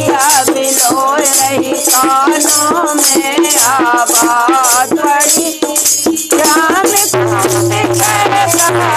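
Women singing a Hindi devotional folk song (bhajan) together, kept in time by rhythmic hand-clapping and a rattling percussion. The singing breaks off briefly about halfway, then resumes.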